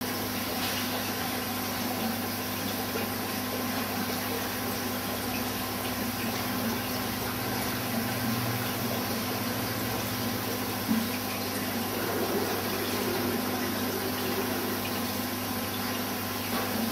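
Steady running water and pump noise from an aquarium's filtration, with a constant low hum. There is one brief sharp knock about eleven seconds in.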